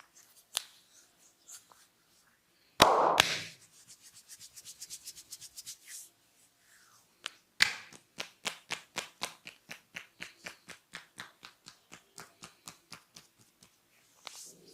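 Barber's hands working on a customer's head during a massage: a sudden loud burst about three seconds in, then quick, even strokes at about five a second. The strokes pause briefly near the middle and start again sharply.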